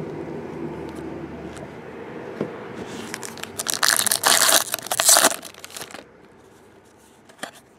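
Foil trading-card pack being torn open by hand: loud crinkling and tearing of the wrapper, starting about three seconds in and lasting about two and a half seconds, followed by a couple of light clicks.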